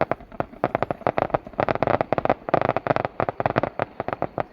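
Fireworks crackling: a dense, rapid run of sharp pops, many each second, that starts suddenly.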